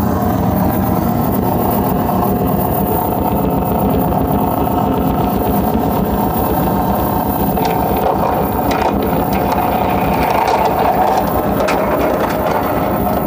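Loud live electronic noise music: a dense, steady drone over a fast, even low pulse, with a held mid-range tone. A crackling layer comes in higher up about two-thirds of the way through.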